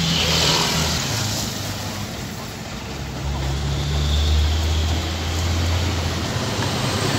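Heavy diesel engine idling steadily, a low hum that grows deeper and louder for a few seconds in the middle.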